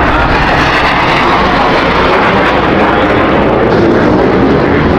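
Military fighter jet flying low overhead, a loud steady roar of jet engine noise.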